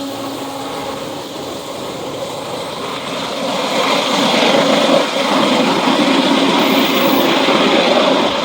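Freight train rolling past close by: a steady rumble of wheels on rail with diesel locomotive engine noise. It grows louder about three and a half seconds in as the rear DPU locomotive draws near.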